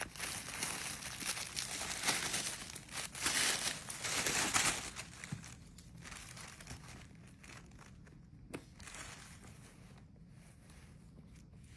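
Packaging crinkling and rustling as it is unwrapped. It is loud for about the first five seconds, then fainter, with a single sharp click about two-thirds of the way in.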